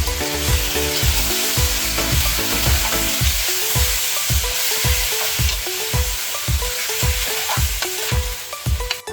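Chicken curry frying in a pan, a steady sizzle, over background music with a regular deep bass-drum beat.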